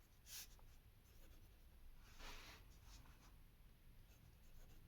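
Faint pen strokes scratching on a writing surface, a short stroke about half a second in and a longer one around two seconds in, over quiet room tone.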